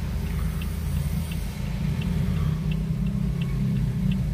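Toyota Vios car engine idling with a steady low rumble, the idle the owner brought it in for as rough and unstable. A faint, even tick comes a little more than once a second.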